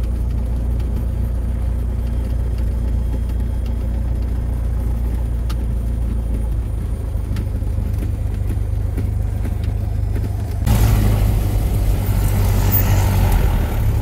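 Piston engine and propeller of a light single-engine plane, heard from inside the cabin while taxiing: a steady low drone. About ten seconds in it gets louder and harsher.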